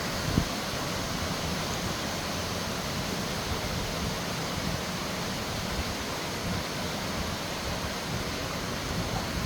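Steady rush of a canyon stream's flowing water, with one brief thump about half a second in.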